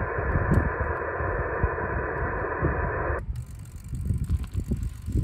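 Yaesu FT-991A transceiver's speaker hissing with band static on 40 m lower sideband, the hiss cut off above about 2.5 kHz by the receive filter. A little over three seconds in, the static stops abruptly, leaving only low rumbling and thumps.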